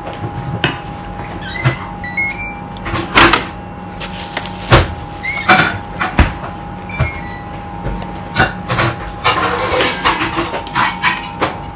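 Kitchen clatter at a gas stove: a string of sharp knocks and metallic clinks from pots, lids and utensils being handled, over a steady mechanical hum.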